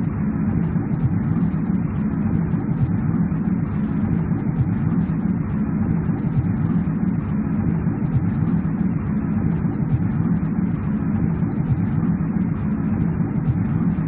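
Steady, even low rumbling noise of a snowy winter-forest ambience, with no separate events.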